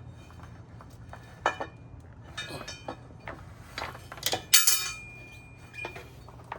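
Small metal parts, bolts and washers, clinking as they are handled and set down. There are several sharp clinks; the loudest, about four and a half seconds in, rings on briefly.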